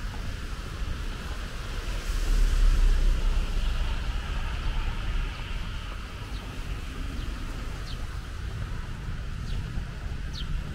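Steady outdoor rumble and hiss that swells louder about two seconds in and eases off again. In the second half there are a few short, high, falling chirps.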